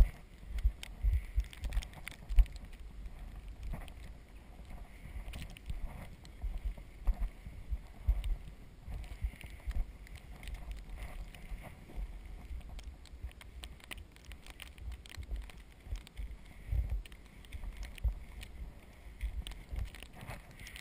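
Recumbent trike being ridden through fresh snow: the tyres rolling through the snow, with irregular low thumps and scattered small clicks from the ride on the microphone.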